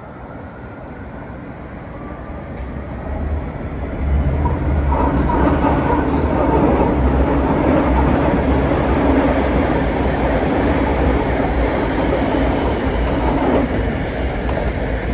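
Two Barcelona Metro Line 1 trains, an S6000 and an S4000, running past each other on the tracks below. The noise builds over the first four seconds, stays loud and steady with a deep rumble, and eases slightly near the end.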